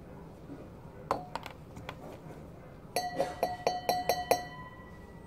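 Light clinking: a few sharp ticks, then a quick run of about eight ringing clinks, all at one pitch, from a small hard object being struck.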